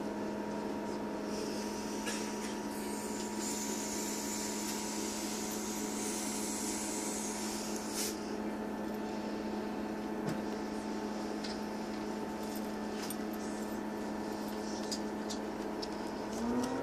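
Class 158 diesel multiple unit's underfloor diesel engine idling steadily, heard from inside the carriage. Near the end its pitch rises as the engine revs up to pull away.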